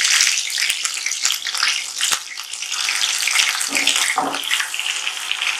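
Wet onion-tomato paste frying in a kadhai of hot oil: a loud, steady sizzling hiss, with a sharp click about two seconds in.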